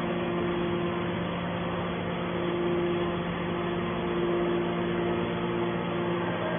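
Metal baling machine for pop cans running: a steady machine hum, with a higher tone that drops out and comes back a few times.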